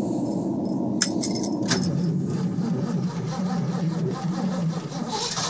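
Cold start of a 1986 Ford F-150 in sub-zero Fahrenheit cold: the starter cranks the cold engine until it catches, with a couple of sharp key clicks about a second in. The truck breathes through a Thrush glasspack muffler.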